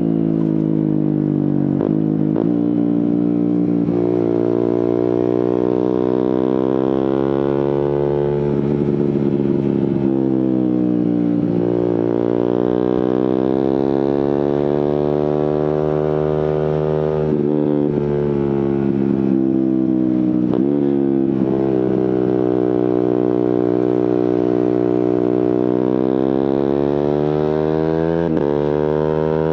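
Suzuki GSX-R150's single-cylinder engine through an aftermarket Prospeed exhaust, riding in traffic. Its pitch climbs and falls several times as the bike accelerates and slows, with short, sharp breaks at the gear changes made by the quickshifter and auto-blipper.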